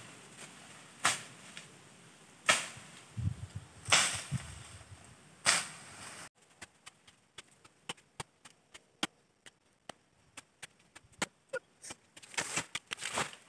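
Machete blows slashing through brush and undergrowth: four sharp strikes about a second and a half apart, then a run of fainter, quicker clicks and cuts.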